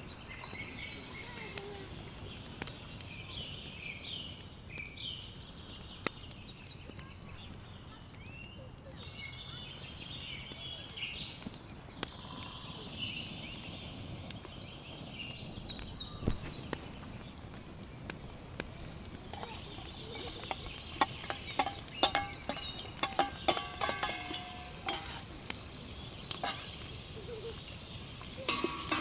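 Food sizzling as it fries in a pan, with a run of sharp clicks and scrapes from a utensil stirring it in the second half. Short chirps are heard in the first half, before the frying starts.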